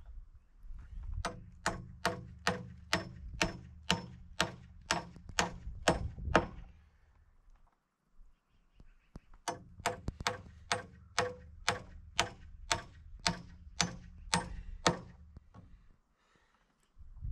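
Hammer driving nails into wood framing lumber: two runs of steady, ringing strikes, about two a second, with a pause of a couple of seconds between them.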